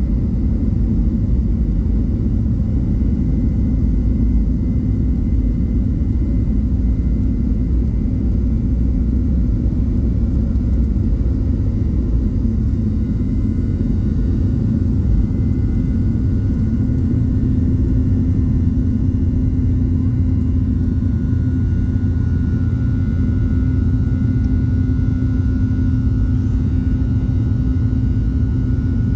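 Jet airliner at takeoff power, heard inside the cabin: a steady, loud low rumble through the takeoff roll that carries on into the climb after lift-off. A steady higher whine comes in about two-thirds of the way through.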